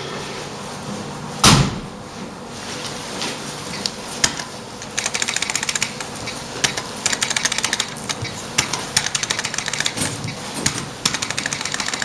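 Electronic roulette terminal clicking fast and repeatedly, several clicks a second, as chips are placed on its touchscreen betting layout. Before that, a couple of single sharp knocks.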